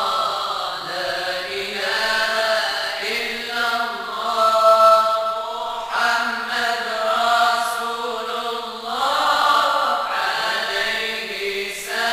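Moroccan madih nabawi, devotional praise of the Prophet, chanted: a melodic vocal line held in long notes, in phrases of about three seconds.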